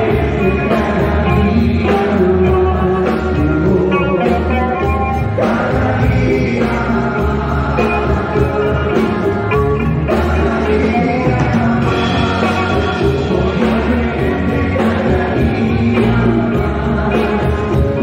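Live band playing with electric guitar, electric bass, drum kit and keyboard, with men singing into the microphones.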